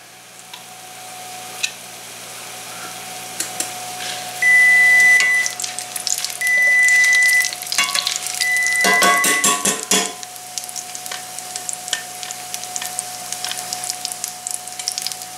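A steak sizzling and frying in hot oil in a cast-iron skillet, with the clatter of tongs turning and pressing it about nine seconds in. Three long electronic beeps, louder than the frying, sound between about four and nine seconds in.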